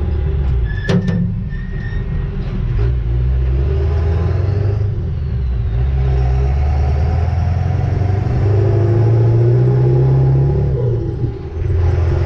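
Ford 7.3 Powerstroke turbo-diesel V8 pulling a loaded trailer, heard from the trailer with road noise; the engine note climbs, dips briefly near the end, then picks up again. A few sharp clicks in the first three seconds.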